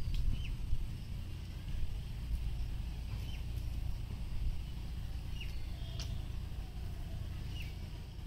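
A bird repeating a short, falling chirp about every two seconds, over a steady low outdoor rumble.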